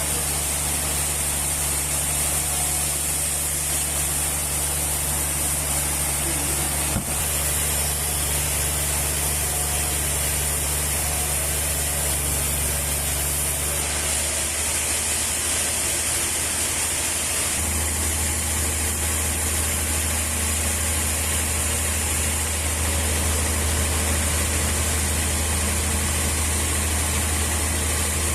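Sawmill machinery running steadily: a low motor hum under a high hiss, the hum shifting in pitch abruptly a few times.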